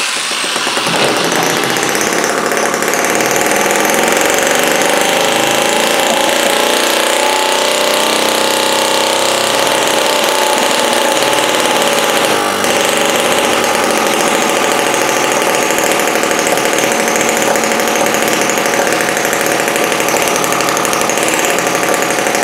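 Miniature single-cylinder four-stroke spark-ignition model gasoline engine, spun up by an electric drill on its flywheel, running steadily at high speed on its own. Its pitch shifts a little near the middle as the needle valve is adjusted.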